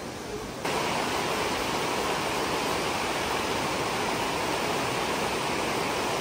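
Fast-flowing, muddy river running through rapids: a steady rush of water that jumps suddenly louder just over half a second in.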